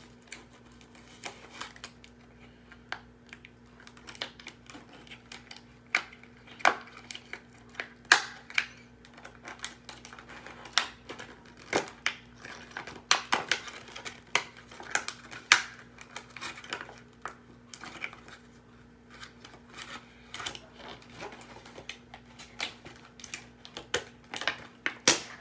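Toy packaging being worked open by hand: irregular clicks, crinkling and tearing of cardboard and plastic, busiest in the middle, over a faint steady hum.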